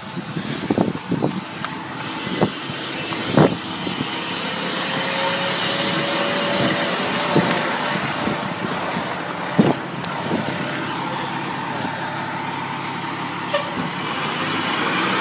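Heavy fire rescue truck running as it pulls out and rolls past, with its diesel engine and air brakes heard and a few sharp knocks in the first few seconds and again around the middle.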